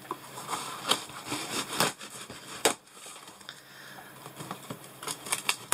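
Hands opening a cardboard shipping box: scraping and rustling at the packing tape and cardboard, with a few sharp clicks and taps.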